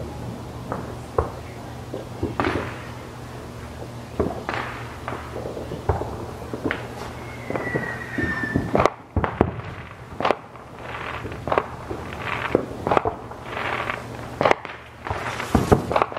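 Aerial fireworks display: a string of booms and crackling bursts, coming thicker and louder over the second half, with a short whistle about halfway through.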